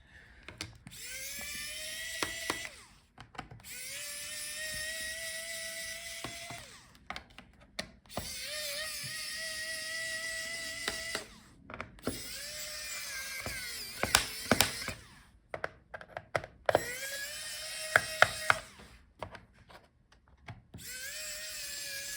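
Small electric screwdriver whirring in runs of two to three seconds, about six times, each run rising briefly in pitch as it spins up and then holding steady, while backing out a laptop's bottom-case screws. Sharp clicks of the bit and screws come between the runs.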